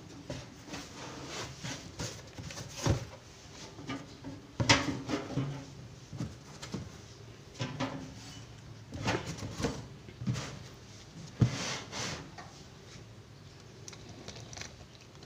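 An empty metal power-amplifier case being pulled out of its cardboard carton and set down: rustling and scraping of the packing with scattered knocks of the case, the sharpest a little under five seconds in and about eleven and a half seconds in.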